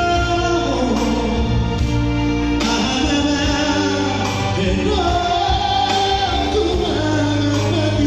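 A vocal trio singing a high-pitched pop-rock ballad in close three-part harmony over a band backing.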